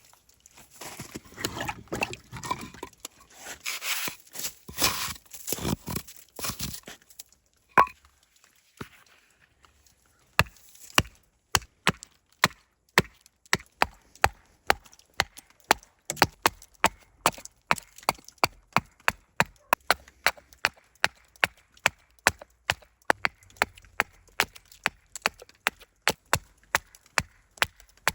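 A blade chopping into a spoon blank. For the first several seconds it makes rough, uneven rasping cuts, then a single knock, then from about ten seconds in it settles into quick, steady chops, close to three a second.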